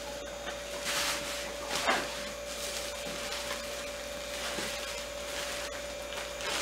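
Bubble wrap and plastic packaging rustling and crinkling as it is handled, in short irregular bursts, the sharpest about one and two seconds in.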